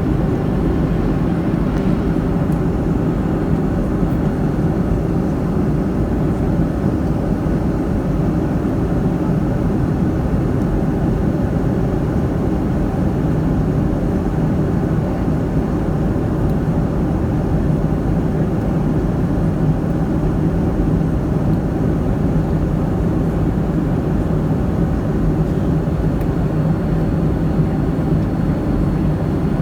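Boeing 757-200 in flight: a steady, unchanging roar of jet engines and airflow, deep and even, with a faint low hum running under it.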